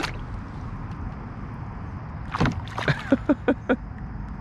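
A fish splashing at the water's surface right beside a canoe, with a sharp splash at the start and then a quick run of about six sharp splashing sounds a little over two seconds in.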